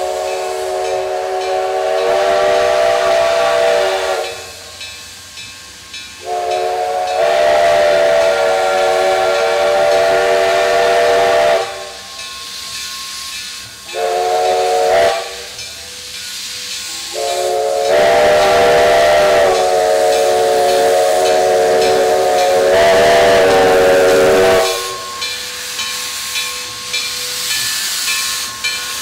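Steam locomotive No. 1293's chime whistle sounding several notes at once in four blasts (long, long, short, then a final long one), the railroad grade-crossing signal. Steam hisses between and after the blasts.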